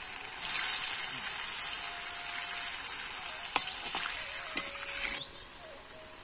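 Kohila (Lasia spinosa) sausages deep-frying in hot oil: a loud, dense sizzle that starts suddenly just under a second in and drops away sharply about five seconds in, with a couple of clicks of a metal slotted ladle against the pan.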